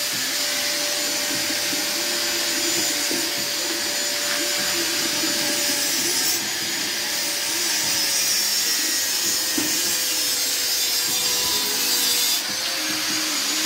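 Electric angle grinder running steadily against a metal exhaust pipe: a constant motor whine over a hiss of grinding, with a brief dip about twelve seconds in.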